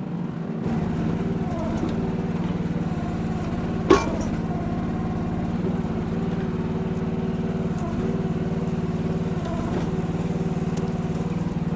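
The 14 hp Briggs & Stratton engine of a micro mini excavator running steadily under load, a little louder from just under a second in, with a single sharp clank about four seconds in.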